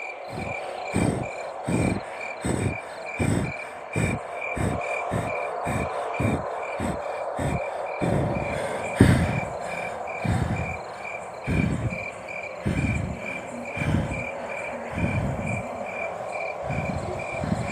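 Night-time crickets chirping steadily, a high chirp repeating about three times a second, over a run of low, evenly spaced thuds about one and a half a second, with one louder hit about nine seconds in and looser thuds after it.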